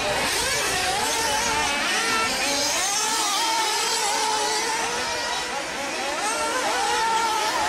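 Radio-controlled off-road cars running, their motors' high whine rising and falling in pitch as they speed up and slow down.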